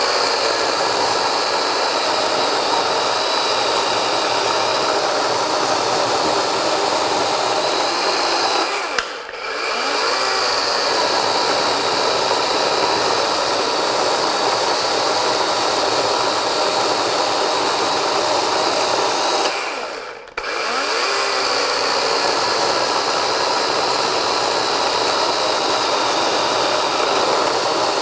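DEWALT 12-inch 20V XR cordless chainsaw cutting wood under steady load. It briefly lets off twice, about a third and two-thirds of the way through, the motor dropping in pitch and coming back up.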